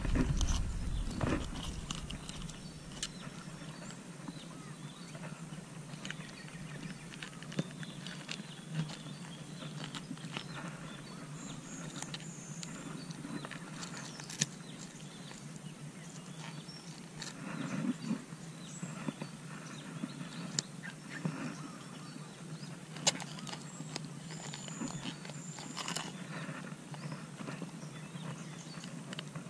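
Faint handling noise: scattered clicks and rustles of scissors and a lip-grip tool working a soft-frog lure out of a snakehead's mouth, over a low steady background. A couple of short high chirps are heard near the middle and near the end.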